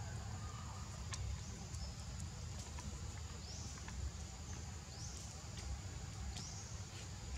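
Baby monkeys giving three short, high squeaks that rise in pitch, about a second and a half apart, over a low steady rumble and a few faint clicks.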